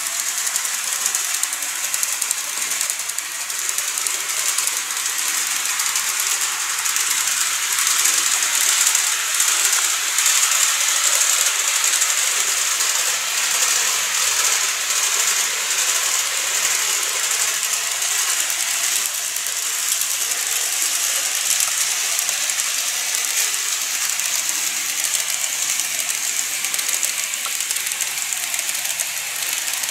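N-gauge model trains running on the layout: the small motors and metal wheels on the rails make a steady high hiss and rattle.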